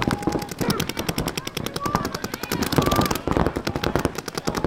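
Paintball markers firing in rapid, continuous strings of shots, a fast rattle of many pops a second.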